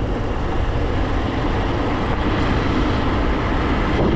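Steady wind buffeting on the microphone mixed with a motorbike's running engine while riding along at speed.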